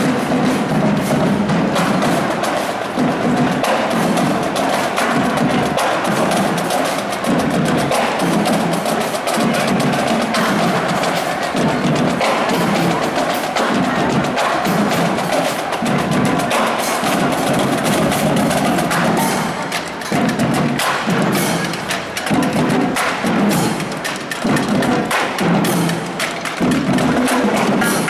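Police marching drum line, snare drums and bass drum, playing a steady marching cadence.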